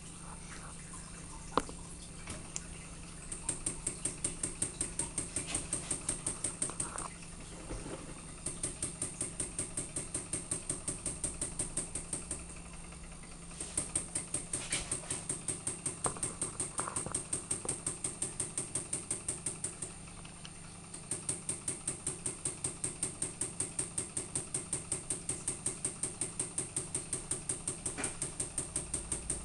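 Homemade Ringbom Stirling engine running unloaded with the burner off, ticking fast and evenly at about four clicks a second. The rhythm breaks off briefly three times.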